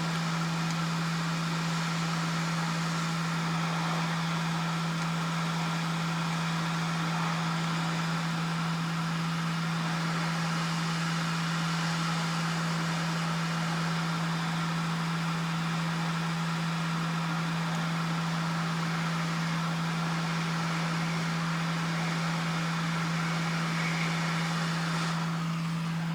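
Hot air rework station blowing on a circuit board to desolder a chip: a steady hiss of air over a low steady hum. The airflow cuts off near the end.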